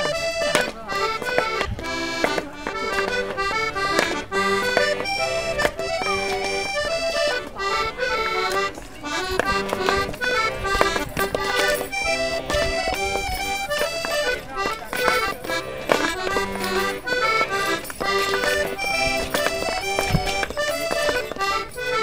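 Accordion playing a lively traditional folk tune, with a steady beat of knocks under it.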